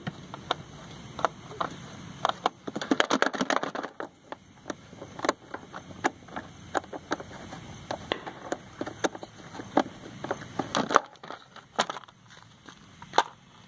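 Irregular plastic clicks, taps and rustling as the air-filter box cover of a Honda Shine motorcycle is worked loose by hand and pulled off, with bursts of crackling handling.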